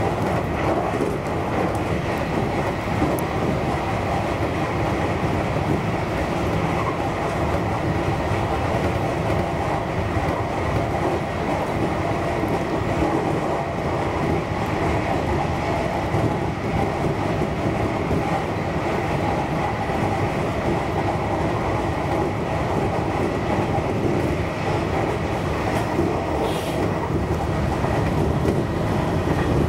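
JR Kyushu 813 series electric train running steadily at speed, heard from inside behind the driver's cab: an even rumble of wheels on the rails with a faint steady whine.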